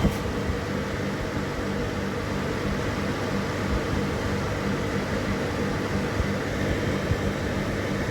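Dehumidifiers running: a steady compressor and fan hum, with a few short knocks.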